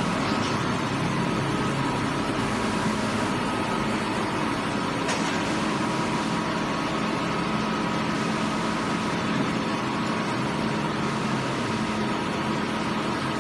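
Plastic board extrusion line machinery running: a steady drone of motors and fans, with a few constant pitched tones in it.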